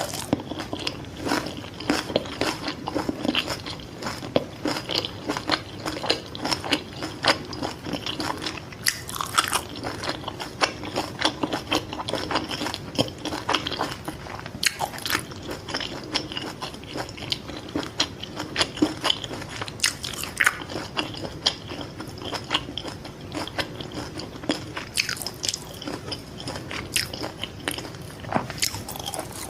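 Close-miked biting and chewing of fried fish balls: a continuous, irregular run of crunches and mouth clicks, with a few louder bites scattered through.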